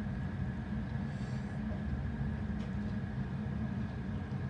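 A steady low background hum with no voice, level and unchanging throughout.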